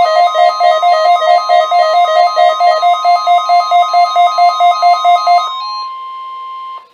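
NOAA Weather Radio alert: a rapid pulsing two-note alarm beeping about four times a second over a steady tone near 1 kHz, the weather radio warning alarm tone. The beeping stops about five and a half seconds in, and the steady tone runs on alone until it cuts off abruptly near the end.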